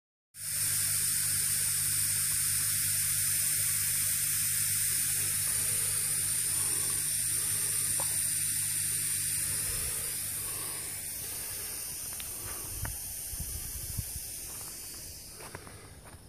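Air hissing steadily through the valves of a pond-aeration air manifold into clear air lines, over a low steady hum. The hiss fades over the last several seconds, with a few faint knocks near the end.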